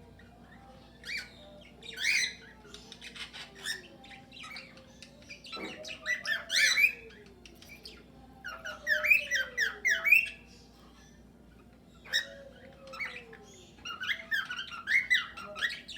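A flock of cockatiels and budgerigars calling in an aviary: several bouts of rapid chirps and squawks, with lower notes falling in pitch in between.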